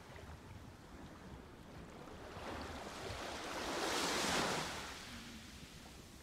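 Ocean waves on a shore: a wave swells about two seconds in, is loudest a little past the middle as it breaks, and washes away, over a low steady rumble of surf.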